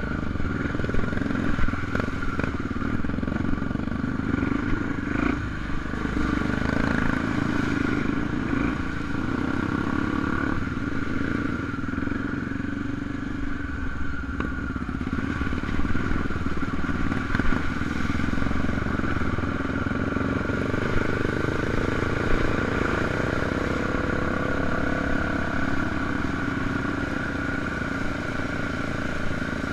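A Honda Tornado 250 single-cylinder trail motorcycle running steadily while being ridden, with clattering knocks from the bike over rough ground, most of them in the first few seconds.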